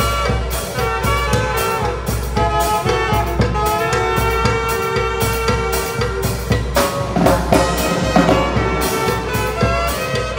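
Zacatecas-style tamborazo band playing live: two saxophones carry the melody in held notes over a steady beat on a large wooden bass drum (tambora) with cymbal and metal-shelled tarola drums.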